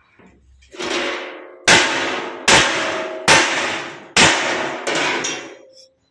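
A hammer striking a steel trailer-ramp frame: about six hard blows, roughly one every 0.8 s, each leaving the metal ringing.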